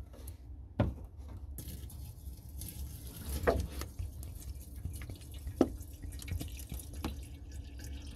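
Water being poured from a gallon jug into an ice tank, a splashing stream starting about a second and a half in, with a few louder glugs along the way.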